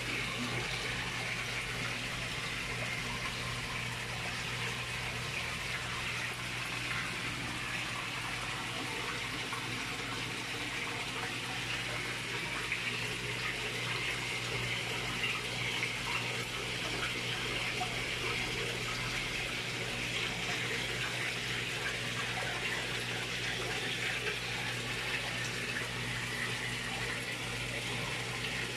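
Steady running and splashing water in a fish pond, with a low steady hum underneath.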